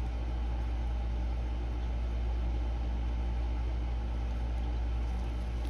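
A steady low mechanical hum: a deep drone with several faint held tones above it, unchanging throughout.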